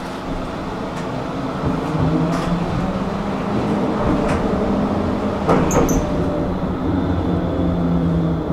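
Running noise inside a Pesa Swing low-floor tram: a steady hum from the drive with wheel and rail rumble, growing louder about two seconds in. A few sharp clicks and a brief high squeak come near the middle.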